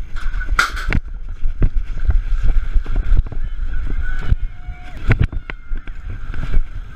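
A bike-mounted camera on a BMX racer. About half a second in there is a loud sudden clatter as the start gate drops. After that the bike rolls fast down the start ramp and over the dirt track, with wind noise on the microphone and repeated knocks and rattles from the bike over the bumps.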